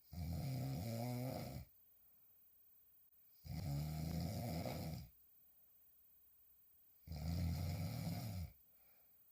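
A woman snoring hard while sleeping on her back: three snores of about a second and a half each, coming roughly every three and a half seconds, with quiet breathing gaps between them.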